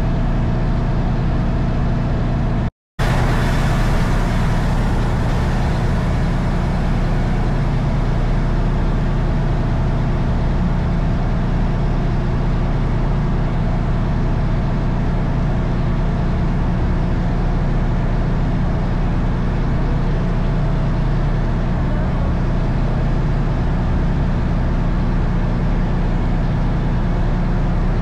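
Faluwa boat's engine running steadily under way, a loud, even drone heard from on board. The sound drops out completely for a split second about three seconds in.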